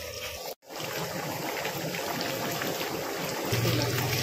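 Water being poured into a large kadai of hot chicken curry, with a steady trickling and splashing as the gravy steams.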